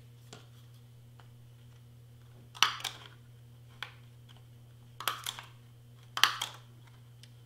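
Handheld single-hole punch snapping through black cardstock: three sharp crunchy clicks a second or more apart, the last the loudest, with light paper handling between.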